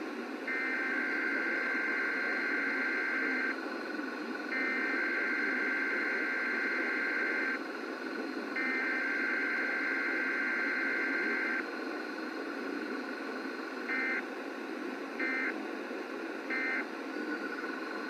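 Emergency Alert System SAME data bursts from WOI (AM)'s Required Weekly Test. The digital header is sent three times as a buzzing warble of about three seconds each, with a second's pause between, followed by three short end-of-message bursts, all over a steady radio hiss.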